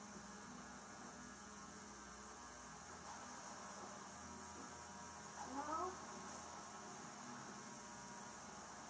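Steady low electrical hum with faint background hiss, broken about five and a half seconds in by a brief faint rising tone.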